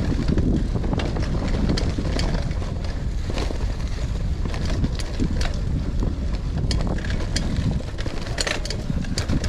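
Wind buffeting the microphone over the low rumble of a gravel bike's tyres rolling on dirt trail, with frequent short rattles and clicks from the bike over rough ground.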